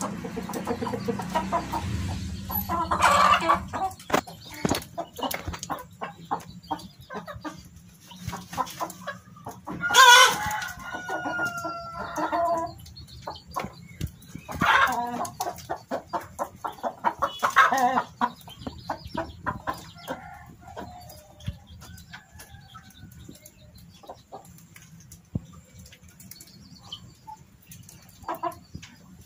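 Chickens clucking, with a rooster crowing; the longest and loudest crow comes about a third of the way in, and shorter loud calls follow about halfway through and a few seconds later.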